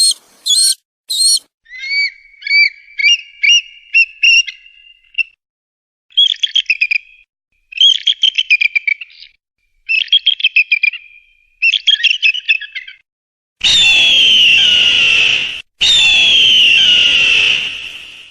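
Eagle calls: a few short high chirps, then several rapid piping, chattering call series. Near the end come two long harsh screams, each about two seconds and falling in pitch.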